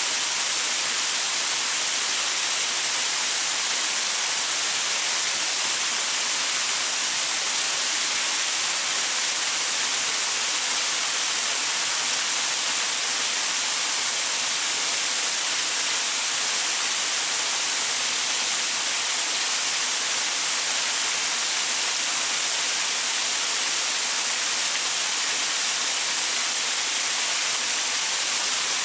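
Waterfall splashing onto rocks: a steady, even rush of water, heavy in hiss, that never changes.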